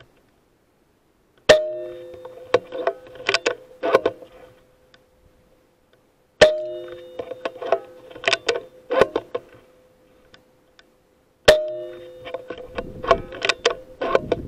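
Three air rifle shots about five seconds apart, each a sharp crack with a short metallic ring, each followed by a run of sharp mechanical clicks and knocks.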